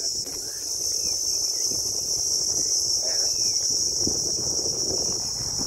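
Steady, high-pitched drone of an insect chorus that does not let up, over a low, uneven rumble.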